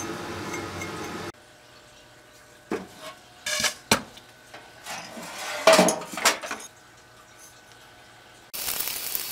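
Steel axe head clinking and knocking against a shallow metal paint tray of vinegar: a run of sharp metallic clinks, one of them ringing, in the middle. A steady hiss runs for about the first second and starts again near the end.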